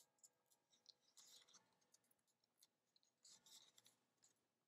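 Very faint scratching and rustling of a cardstock panel being handled while fingernails pick the release papers off its foam adhesive dimensionals, in short bouts about a second in and again about three and a half seconds in, with a few small clicks.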